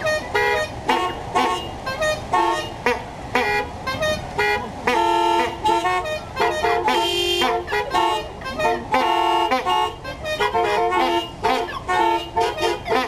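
Many car horns honking together in a played rhythmic pattern: rapid short toots and a few longer held blasts, sounding several pitches at once like chords.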